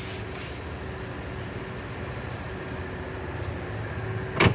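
Steady low hum with a few faint steady tones in it, broken near the end by one brief, sharp knock.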